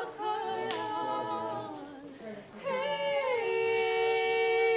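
Unaccompanied voices singing a slow line that wavers about a second in, then settles into one long held note from about three and a half seconds in.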